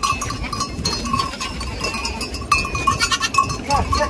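Goats and their kids milling together: small bells clinking and ringing as they move, with a goat bleating briefly near the end.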